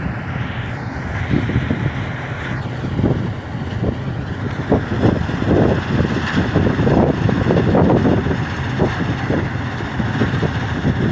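Combine harvester's diesel engine running steadily under load, with a constant low hum and irregular low knocks and rumbles.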